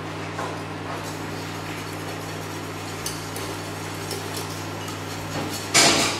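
Wire whisk working a butter sauce in a stainless steel saucepan, with faint scattered clinks of metal on metal over a steady low hum. Near the end comes one loud, sharp clatter.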